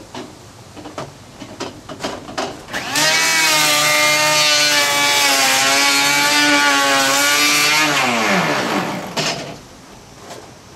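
Electric hand planer switched on and run for about five seconds, taking down high spots on wooden deck joists, then switched off and winding down with a falling whine. A few light knocks come before it starts.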